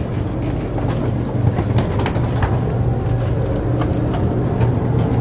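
Steady low hum of a train standing at the platform, heard from inside the carriage, with scattered clicks and knocks of bags and footsteps as passengers move down the aisle.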